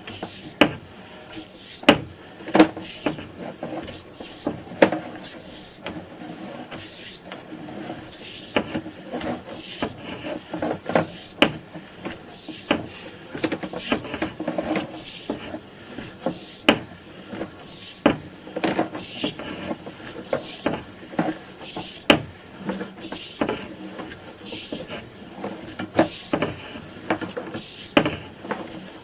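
Irregular clicks, knocks and rubbing from a sewer inspection camera's push cable being fed by hand into the drain line, a few sharp knocks each second or two.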